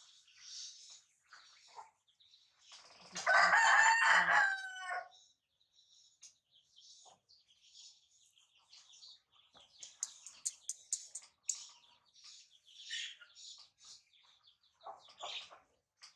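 A rooster crows once, about three seconds in, and is the loudest sound. Faint high-pitched chirps and squeaks come and go around it.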